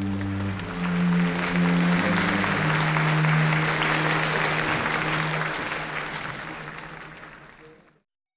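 An audience in an opera house applauding, swelling over the orchestra's last held low notes and then fading. The sound cuts off abruptly just before the end.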